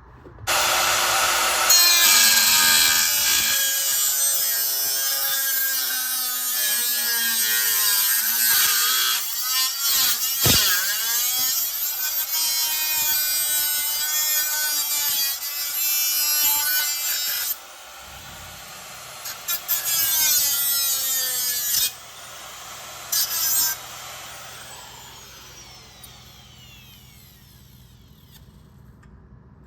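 A power tool running with a high whine whose pitch slides up and down: one long run of about seventeen seconds, then two shorter bursts.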